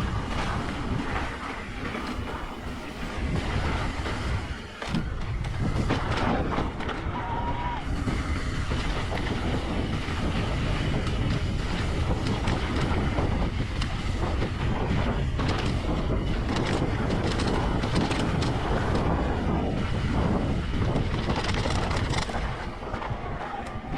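Mountain bike riding fast down a dirt trail: tyres rumbling over the ground, with frequent knocks and rattles from the bike.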